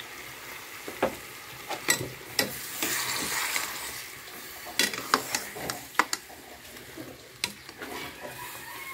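Chicken and onion sizzling in a pot as a little water is dripped in and a metal spoon turns the pieces, knocking and scraping against the pot several times. The water goes onto the browned bits starting to stick to the bottom, keeping them from burning while the chicken browns.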